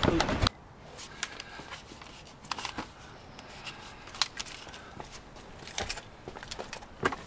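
Handling noise from work under a car: scattered light clicks and rustles, with a louder rustle in the first half second.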